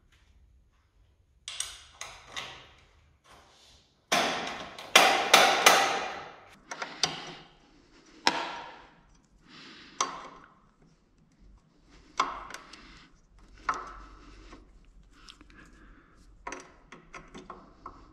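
Hand tools and metal parts knocking and clattering as a motorcycle footrest is fitted and bolted on: a dozen or so separate knocks, busiest and loudest about four to six seconds in.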